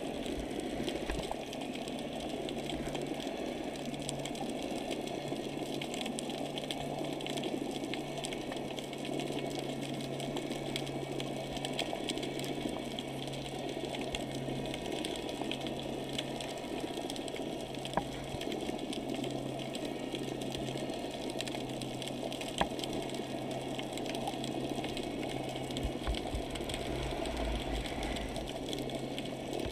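Steady, muffled underwater noise heard through a GoPro's waterproof housing, with a low steady hum that swells and fades. A few faint sharp clicks come through, two of them plainer in the second half.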